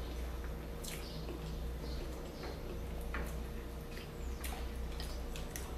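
Faint, scattered clicks of metal forks on plates as two people eat, about six light ticks spread through, over a low steady hum.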